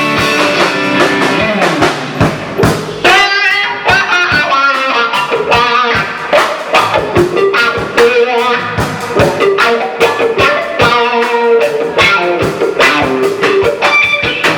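Live rock band playing an instrumental break: a guitar line over a drum kit with a steady beat.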